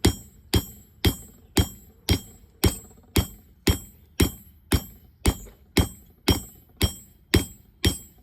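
Blacksmith's hammer striking hot quarter-inch square steel stock on an anvil, a steady run of about two blows a second, each with a bright metallic ring, flattening the end of the bar where holes will be punched. The blows stop near the end.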